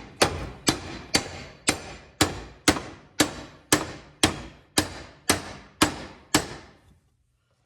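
A hammer striking a stuck part on a Lawn-Boy mower in a steady run of about thirteen blows, roughly two a second, each with a short ring, stopping about a second before the end.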